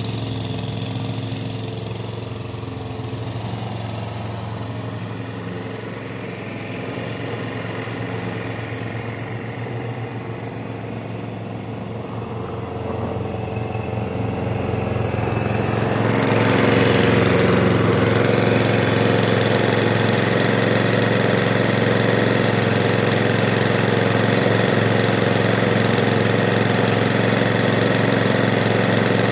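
Hyundai petrol lawn mower engine running steadily as the mower is pushed across the grass. It gets louder about halfway through as the mower comes up close, and keeps running at that level.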